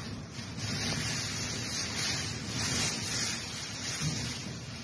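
Tropical cyclone wind and heavy rain: a steady rush of wind-driven rain through trees that swells in gusts, with wind buffeting the microphone.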